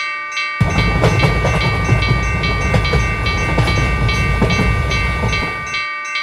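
Railroad crossing warning bell dinging rapidly and steadily, with a train passing through from about half a second in: a loud low rumble and wheels clattering over rail joints. The train noise dies away near the end, leaving the bell.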